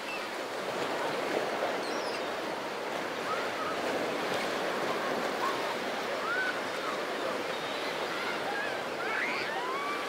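Small waves washing in over a pebble beach, a steady rushing wash, with faint short calls now and then from bathers in the water.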